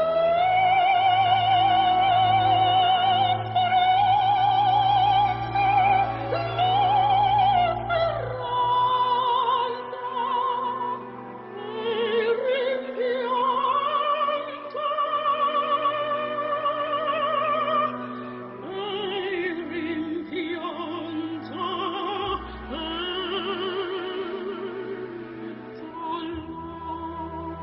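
Slow classical music: an operatic voice sings long held notes with a wide vibrato over a sustained low accompaniment. It is loudest for the first eight seconds or so, then quieter and more sparse.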